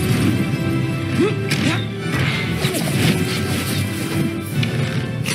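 Dramatic film-score music mixed with loud crashes and impacts of an action scene.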